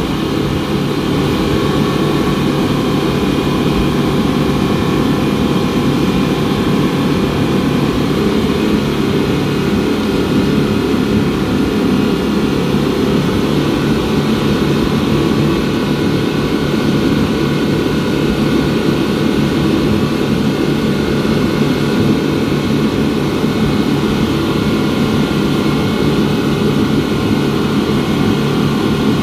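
Twin 250 hp Yamaha outboard motors on a wooden speedboat running steadily under way, an even, unbroken engine drone.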